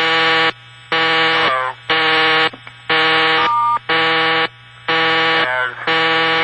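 Telephone busy signal from a Bell System step-by-step community dial office: a harsh, buzzy tone pulsing once a second, half a second on and half a second off. It is a 'talkable' busy, and faint voices show through in some of the pauses.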